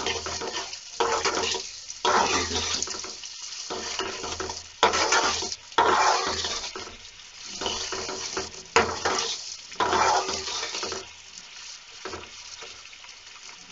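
Chopped onion, garlic and chillies sizzling in hot oil in a pan over a raised flame, while a steel spatula stirs and scrapes the pan in repeated strokes about once a second. The strokes ease off in the last couple of seconds, leaving the sizzle.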